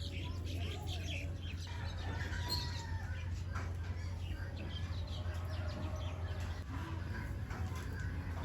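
Chickens clucking, with short scattered calls over a steady low hum.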